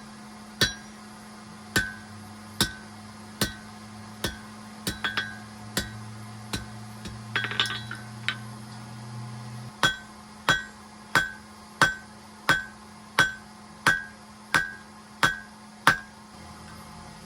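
Hand hammer forging steel on a Hay Budden anvil: about twenty ringing blows roughly every 0.7 seconds, lighter through the middle, with a short rattle partway through, then a run of heavier blows that stops about a second before the end. A steady low hum runs underneath.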